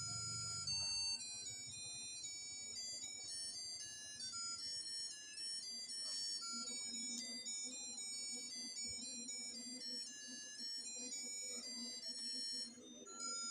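A simple electronic melody of single beeping notes, the kind of tune played by a novelty light's music chip. A low steady hum joins in about halfway through.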